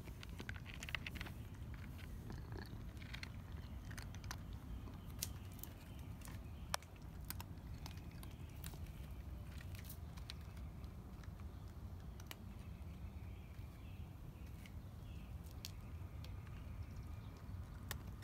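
Cat eating from a plastic dish: scattered sharp crunches and clicks of chewing over a steady low rumble.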